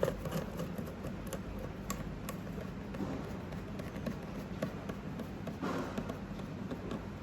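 Light, scattered taps and clicks of small screws and plastic parts being handled during reassembly of a fusion splicer's outer cover.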